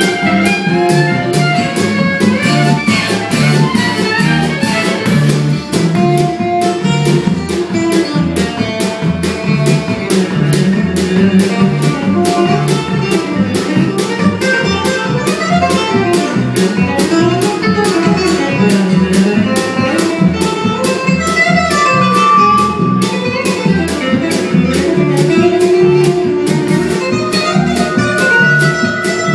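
Acoustic string band playing an up-tempo tune, with fiddle and guitar over a steady, even beat. Several long held high notes come after the middle.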